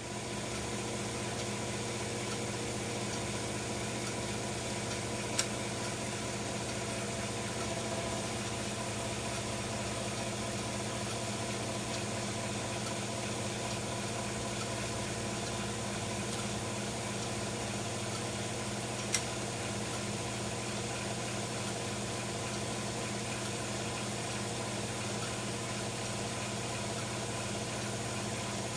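A steady low mechanical hum with faint higher tones, broken by two single sharp clicks about five seconds and about nineteen seconds in.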